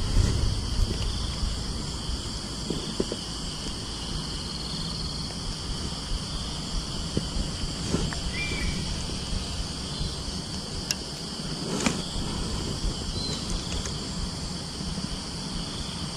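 A steady insect chorus, an even high buzzing, with a low rumble underneath and a couple of sharp clicks about two-thirds of the way through.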